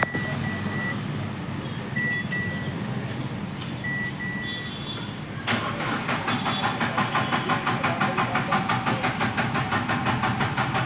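A few short high beeps, then a Renault Kwid's three-cylinder petrol engine is cranked by its starter with a fast, even pulsing of about six beats a second, and it does not catch: a no-start that is traced to a wiring fault.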